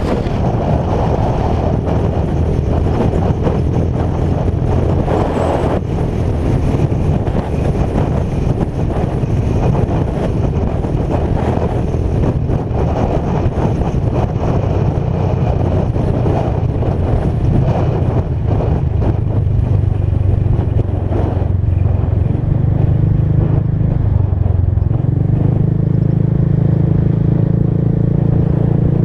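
Motorcycle riding at road speed, heard from a camera on the bike: heavy wind rush on the microphone over the engine's steady drone. Near the end the wind eases and the engine note comes through more clearly.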